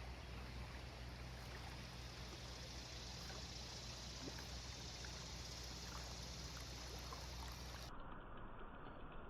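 Creek water flowing steadily, a constant even hiss that turns duller near the end.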